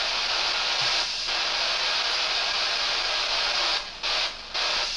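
Loud, steady hiss of heavy rain pelting the passenger railcar's roof, dropping out briefly twice near the end.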